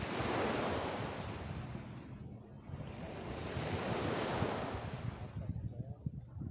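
Small sea waves breaking on a beach, two washes surging in and fading over a couple of seconds each, with wind buffeting the microphone.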